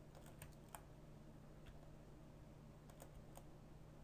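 Faint, irregular clicking of computer keys over a low steady hum; otherwise near silence.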